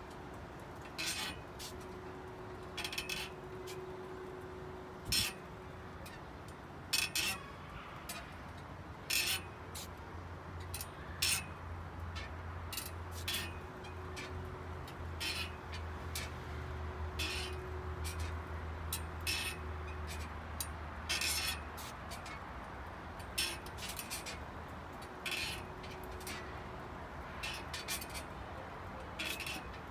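A swing creaking and clinking as it rocks back and forth, a sharp clink every second or two with a faint squeak between. A low hum rises in the middle and fades out.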